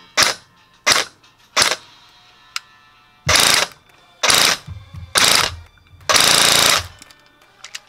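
EMG Taran Tactical TR-1 airsoft electric rifle (AEG) firing through a chronograph: three single shots about two-thirds of a second apart, a faint click, then four short full-auto bursts, the last the longest.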